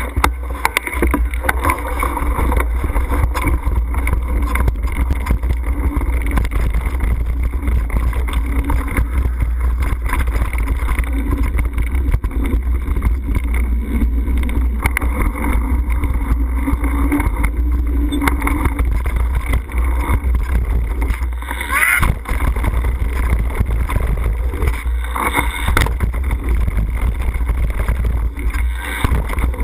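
Mountain bike rolling fast down a rough dirt trail: a loud steady rumble of wind buffeting and trail vibration on the bike's action-camera microphone. There is a brief break and a sharp noise about two-thirds of the way through.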